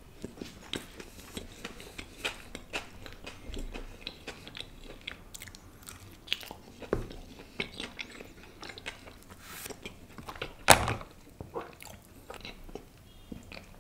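Close-miked eating sounds of a person biting and chewing pav bhaji with a soft bun: wet smacks and small clicks of the mouth throughout. One much louder crunch comes about eleven seconds in.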